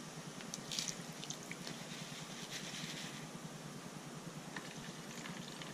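Water sloshing and splashing as a plastic bowl of steel pin tumbling media, held together by a magnet, is dipped and rinsed in a tub of dirty water. A few small sharp splashes or clicks come in the first few seconds.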